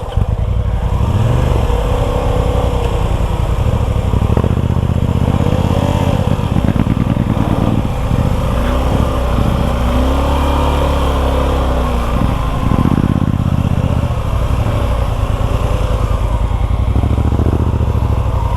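Suzuki V-Strom 250 SX's single-cylinder engine pulling under load on a steep off-road climb, its revs rising and falling with the throttle.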